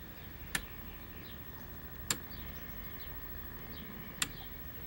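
Three sharp single clicks, spaced about a second and a half to two seconds apart, of a switch being pressed as the TV's test patterns change. Behind them is a faint steady hum.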